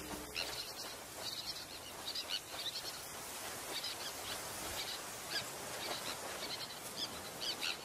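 Busy breeding colony of terns and pied avocets calling: many short, high calls overlapping over a steady hiss.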